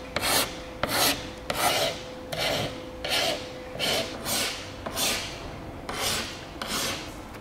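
A thin flat hand tool scraped back and forth along the top edge of a car door's window glass in quick, even strokes, about two per second.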